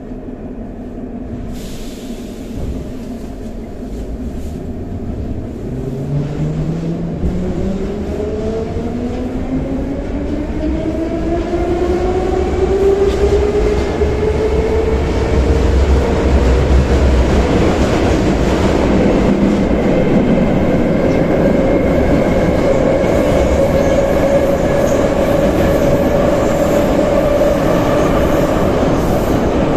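An 81-717 metro train pulling away from a station, heard from inside the car. A few seconds in, the traction motor whine starts low and climbs steadily in pitch for about ten seconds, then holds steady at running speed. The wheel and running rumble grows louder as it goes.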